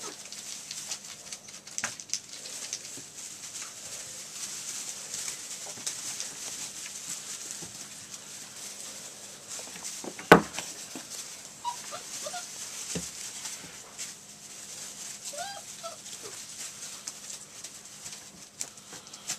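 Six-week-old retriever puppies scrambling and playing in wood shavings, a steady rustle and patter of paws and bedding, with a few short, high whines or yips in the second half. One sharp knock about ten seconds in is the loudest sound.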